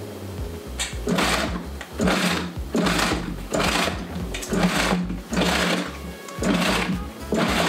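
Electric countertop food mixer pulsed in short bursts, about eight of them a little under a second apart, churning a thick cream-cheese cheesecake filling.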